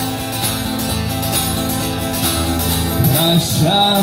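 Music from a song: an instrumental passage between verses with guitar and steady held notes. A singing voice comes back in near the end.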